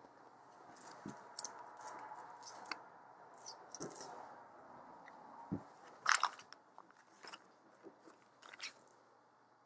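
Clear plastic sleeve being handled: a run of sharp crinkles and clicks, with a few light knocks.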